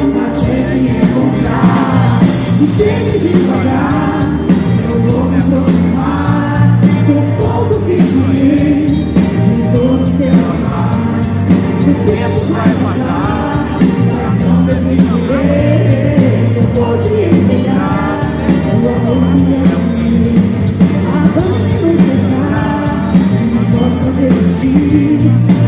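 A singer performing a song live over a loud band.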